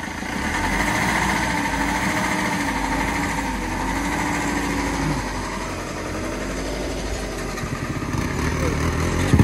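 Motorcycle engine running while riding, its pitch rising and falling slowly.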